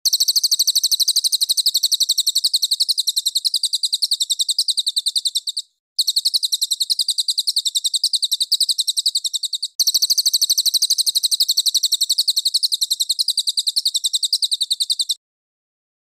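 Songbird master call: a very rapid, high-pitched string of repeated chirps, like rapid fire. It comes in three long runs with two short breaks and stops about a second before the end.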